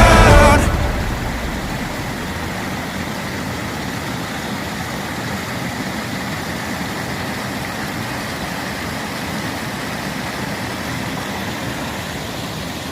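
Steady rushing of a powerful, fast-flowing river. A music track cuts off about half a second in.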